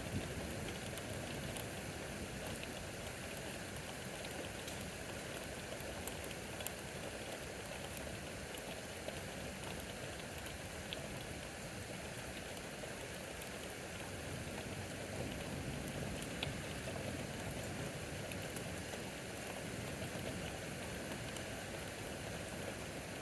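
Steady rain from a severe thunderstorm, falling as an even hiss with scattered sharp ticks of drops striking surfaces.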